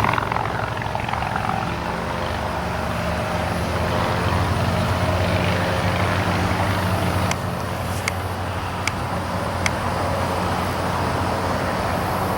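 50cc two-stroke gas engine of a radio-controlled airplane running steadily in flight, a little quieter from about seven seconds in. A few faint sharp clicks come between about seven and ten seconds in.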